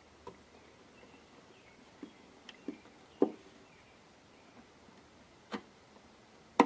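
Scattered light clicks and knocks, about half a dozen, irregularly spaced, the loudest near the end: small hardware and a hand tool being handled while a screw is started into a plywood box.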